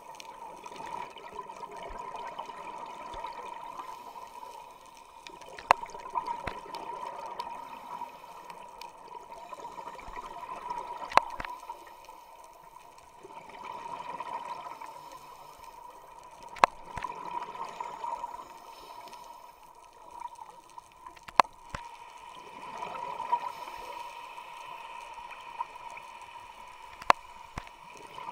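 Underwater sound of scuba breathing through a regulator: bubbly exhalations swelling and fading about every five seconds, with a sharp click about every five and a half seconds, over a faint steady tone.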